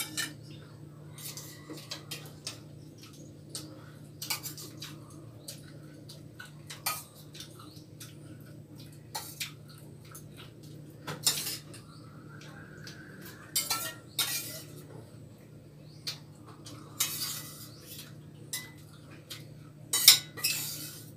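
A metal spoon clinking and scraping against stainless steel plates and serving bowls as food is dished out, in scattered irregular clinks over a steady low hum. The loudest clinks come near the end.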